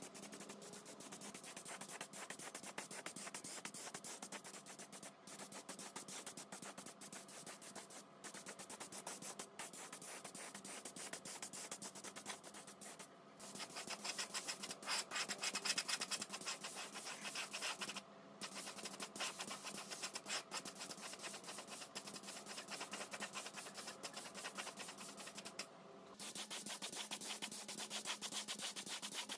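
Abrasive scratching on rusty metal as rust is sanded off: a rapid, even rasping with a faint steady hum under it. It breaks off briefly several times and is louder for a few seconds about halfway through.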